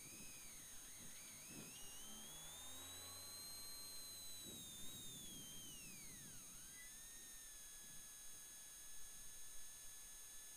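Faint electronic whistling tones that glide slowly up and down, with steady high-pitched tones under them.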